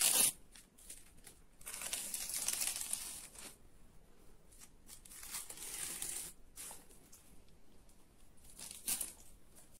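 Plastic protective film being peeled and crinkled, a soft tearing crackle in several separate stretches with pauses between.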